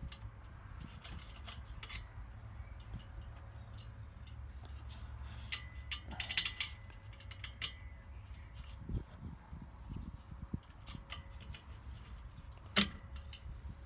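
Small clicks and clinks of bolts and metal parts being handled and fitted on a diesel heater, with a cluster of ringing metallic clinks about six seconds in and one sharp click near the end, over a low steady hum.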